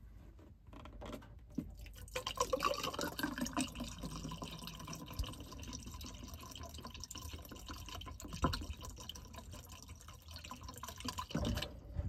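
Water poured from a plastic jug into the open PVC tee of a heat pump air handler's condensate drain, running down through the trap to flush the line. The pour builds up about two seconds in and stops shortly before the end.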